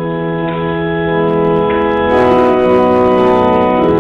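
Church organ playing slow, held chords that change every second or so, coming in right at the start.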